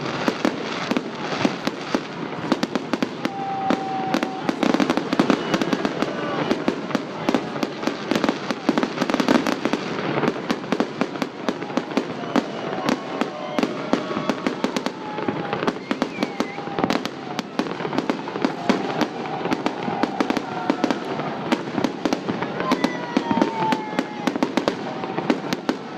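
Fireworks salute: a dense, unbroken crackle of many sharp bangs and pops, with voices of the crowd underneath.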